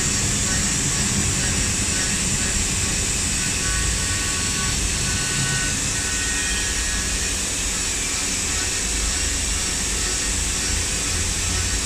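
CNC machining centre milling a pre-hardened 718H steel melamine mould block under flood coolant: the spindle and cutter run with a steady machining noise, a strong high hiss over a low hum.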